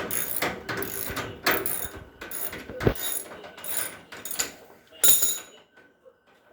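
A socket ratchet clicks through repeated back-and-forth strokes as it unscrews the 13 mm bolt holding a front-load washer's damper shock. There is a sharp knock about three seconds in, and the ratcheting stops about five and a half seconds in.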